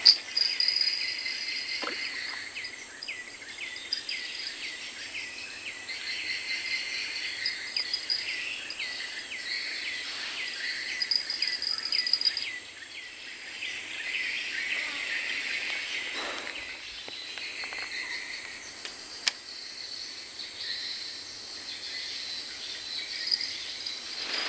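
Insects chirping in the riverside vegetation: a chirp repeated about twice a second over a high buzz that swells and fades. A single sharp click comes about two-thirds of the way through.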